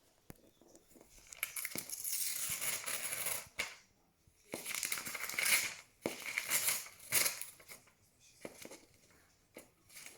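A parrot tearing and shredding paper with its beak: three main bouts of ripping and crinkling paper, with sharp clicks between them and smaller tears near the end.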